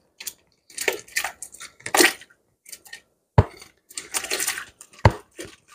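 Raw whole shrimp being pushed with a wooden spoon from a plastic container into a pot of broth: uneven rustling and clattering of the shells sliding against the plastic, with two sharp knocks, one in the middle and one near the end.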